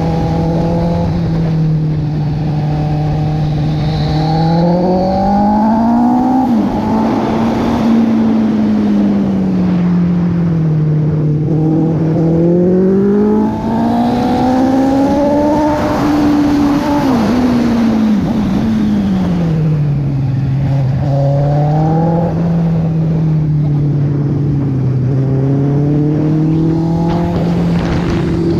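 Honda CB650R's inline-four engine heard from the saddle while riding. Its pitch climbs and falls several times as the throttle is opened and closed, over a steady rush of wind.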